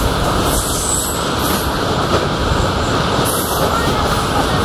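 Covered sliding-wall freight wagons rolling past on the next track: a steady rumble of steel wheels on rail, with a brief high squeal about a second in.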